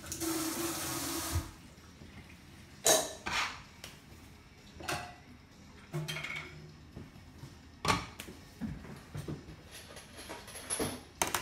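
A short rush of running water, then scattered clinks and knocks of dishes and utensils being handled on a counter.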